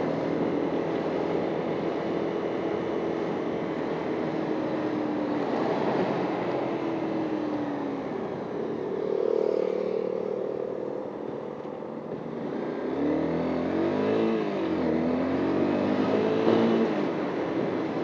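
Honda CBR250 motorcycle engine heard from the rider's helmet, its pitch falling and rising as it is throttled up and down, over steady wind and traffic noise. Its pitch drops about a third of the way in and rises and falls several times near the end.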